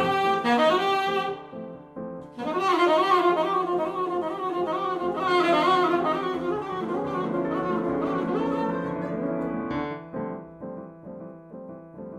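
Saxophone and keyboard piano duo playing contemporary jazz: a winding saxophone melody over piano chords. The saxophone drops out about ten seconds in, leaving the piano playing alone.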